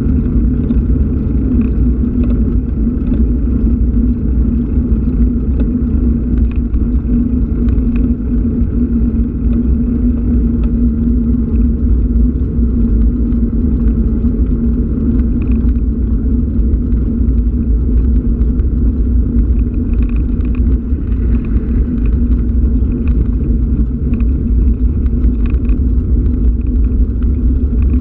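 Steady, muffled low rumble of wind and road noise picked up by a camera moving along a road.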